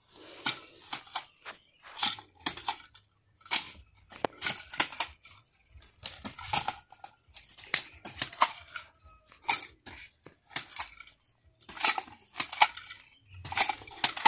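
Irregular sharp clacks and scrapes, about one or two a second, from hand tools working dry, leaf-littered soil: a hoe chopping out planting holes and a hand jab planter snapping shut as it drops seed into them.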